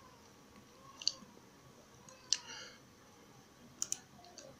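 Computer mouse clicking, faint: single clicks about a second and two seconds in, then a quick double click near the end.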